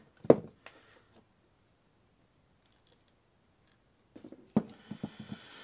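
Clicks from a momentary soldering gun being worked while a wire lead is soldered onto a pre-tinned tab on a lithium-ion battery cell. There is one sharp click just after the start, then a quiet stretch, then a cluster of clicks with a faint hiss near the end.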